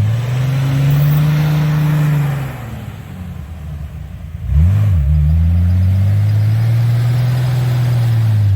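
Off-road vehicle's engine revving hard twice: it climbs and holds high for about two seconds, falls back, then surges again about four and a half seconds in and stays high.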